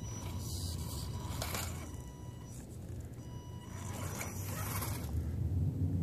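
Axial SCX10 Deadbolt RC rock crawler's electric motor whining in thin high tones as it drives off over the rocks. The whine drops out briefly just before the middle and comes back. There are two bursts of hiss and a steady low rumble underneath.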